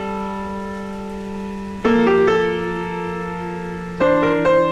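Background music: a slow piano piece of held chords, with a new chord struck about two seconds in and a few more notes near the end.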